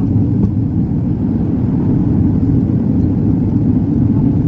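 Airliner cabin noise on the approach to landing: the steady, loud low roar of the engines and the airflow over the fuselage, heard from a window seat with the flaps extended.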